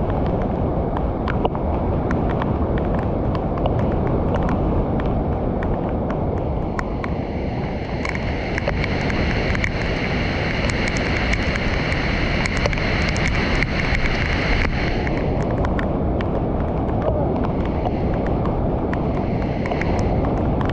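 Brown floodwater pouring over a low weir into a pool: a heavy, steady rush of water.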